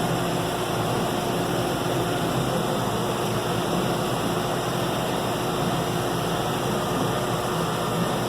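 John Deere 6105M tractor's diesel engine running steadily under way, heard from inside the closed cab with a constant hum and the cab heater fan blowing.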